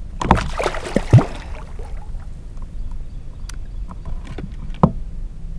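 Handling noise aboard a plastic kayak as a caught bowfin is dealt with on a plastic fish grip: a rush of noise with several knocks in the first second and a half, the loudest about a second in, then scattered light clicks and one sharp knock near the end.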